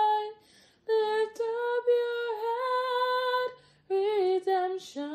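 A woman singing a slow gospel song in long held notes, with brief pauses between phrases and little or no accompaniment.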